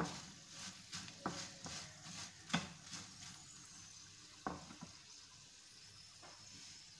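Potato fries sizzling in oil in a non-stick frying pan while a metal spatula stirs them, knocking and scraping against the pan. The knocks come thick and fast for the first three seconds, then a few more, over a steady sizzle.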